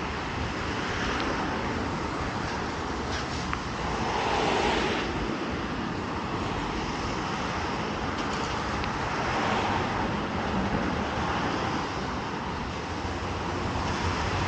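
City street traffic: a steady hiss of road noise, swelling twice as vehicles pass, about four seconds in and again near ten seconds.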